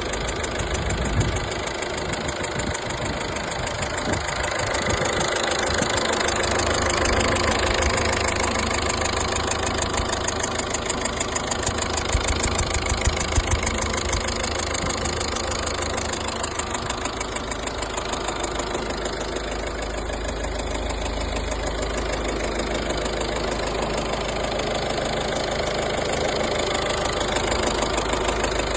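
Engine running at a steady speed, with a fast, even pulsing and no revving.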